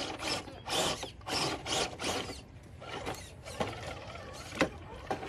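RC crawler truck's electric motor and geared drivetrain whirring in several short surges as it is throttled over rocks, followed by a few sharp clicks.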